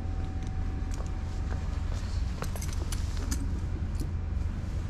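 Steady low hum, with a cluster of light clicks and clinks about halfway through.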